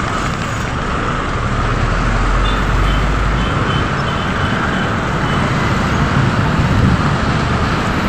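Steady road traffic noise from passing cars and a bus, heard from a moving rider, with a deep rumble for a couple of seconds near the start.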